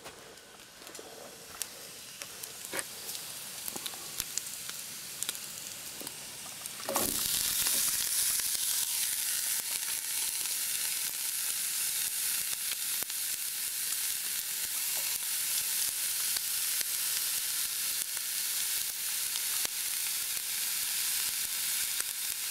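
Wild mushrooms tipped into a hot frying pan with bacon about seven seconds in, with a brief thump and a sudden jump to loud, steady sizzling as they fry in the fat. Before that there is quieter sizzling with light clicks and taps.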